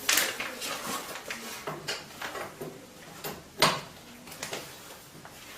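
A metal tool clicking and knocking against the black oil plug of a Henkelman vacuum packing machine as the plug is undone. There is a sharp knock at the start and another about three and a half seconds in, with light clicks between.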